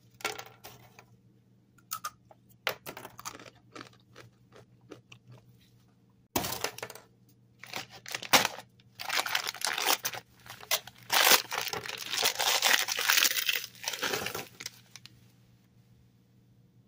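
Takis rolled tortilla chips snapping as they are broken apart, then crunching densely as they are crushed on a wooden tabletop, with a sudden thump about six seconds in.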